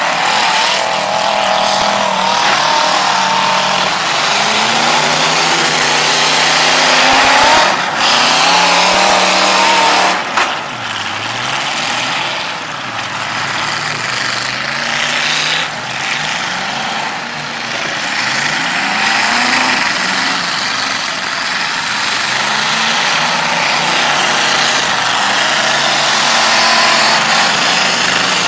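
Demolition derby cars' engines revving hard at once, their pitch rising and falling, over a steady din of engines and tyres on dirt. A few sharp crashes of cars ramming each other come about 8, 10 and 16 seconds in.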